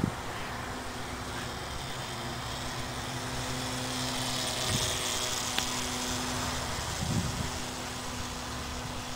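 Steady outdoor noise, with a faint low hum underneath and a hiss that swells and fades about four to five seconds in.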